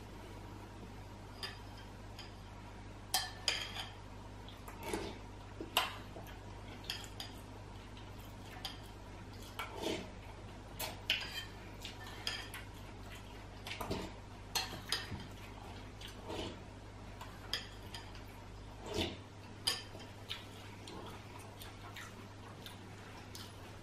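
Metal spoon clinking and scraping against a ceramic cereal bowl while eating, in irregular short clinks a few seconds apart, each with a brief high ring.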